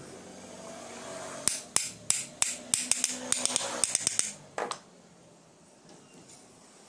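Claw hammer tapping on the metal gear-housing plate of an old 600-watt electric hand planer: about fifteen quick light strikes, speeding up, then one last knock. The tapping frees the motor armature from the housing.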